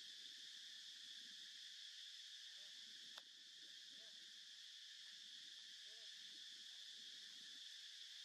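Faint, steady chorus of insects, a continuous high buzz, with one sharp click about three seconds in.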